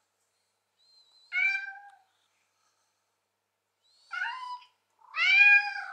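Smartphone ringtone of recorded cat meows playing from the phone's speaker: three meows, the last the loudest, the first two each led by a short thin whistle.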